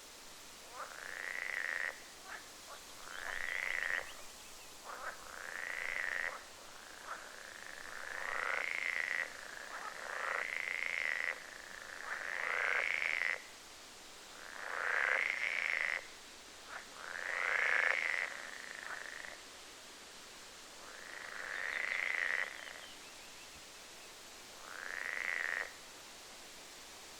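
Frogs calling: about ten drawn-out croaks, each rising in pitch and then holding, spaced roughly every two seconds over a faint hiss.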